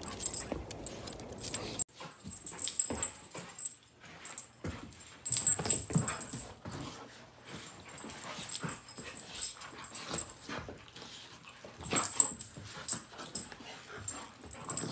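Two dogs, one a golden retriever, playing together with short scuffles and dog noises. Metal collar tags jingle at times.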